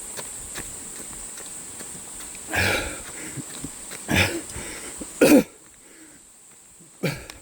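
A runner's hard, gasping breaths while running uphill on a mountain trail: three loud, short exhalations in the middle, with light footsteps ticking steadily at the start.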